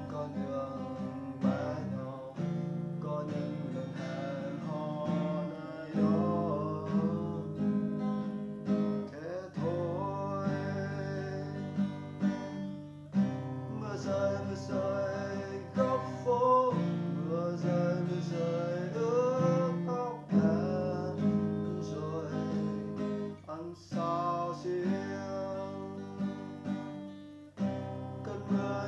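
Acoustic guitar playing an instrumental passage of a slow song: chords under a melody line.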